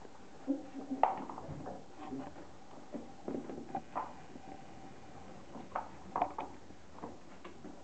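Fox terrier puppies' claws pattering on a tiled floor, with irregular light taps, knocks and scuffs as they play with a ball on a puppy pad.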